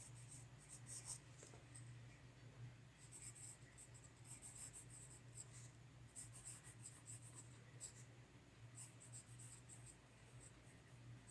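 Faint scratching of writing, in short bursts of strokes, over a steady low hum.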